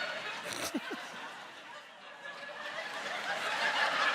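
Studio audience laughing and murmuring, with a short chuckle a little under a second in; the crowd noise dips and then builds toward the end.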